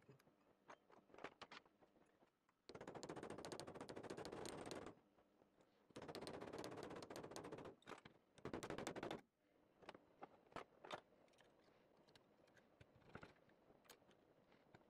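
Rapid metal-on-metal tapping on a pin punch set against the can opener's pivot rivet, driving the rivet out to take the opener apart. It comes in three bursts of fast clicks, the first two lasting about two seconds each and the third shorter, with a few single clicks before and after.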